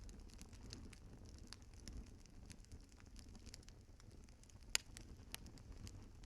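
Fireplace fire crackling faintly over a low rumble, with scattered sharp snaps and one louder pop about three-quarters of the way through.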